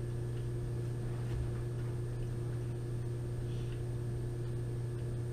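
Quiet room tone: a steady low electrical hum with a fainter steady higher tone, and a couple of very faint soft clicks.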